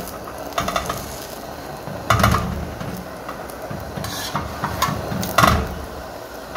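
Steel tongs scraping and knocking against a hot flat griddle (tawa) as a besan roti is shifted on it, several short scrapes with the loudest about two and five seconds in.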